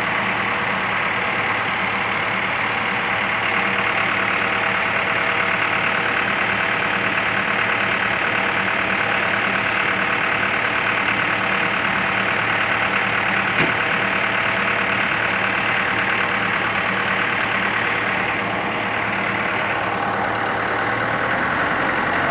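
Medium bus engine idling steadily.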